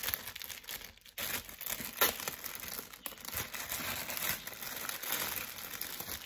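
Clear plastic bag crinkling and rustling as it is handled and opened, with a sharper crackle about two seconds in.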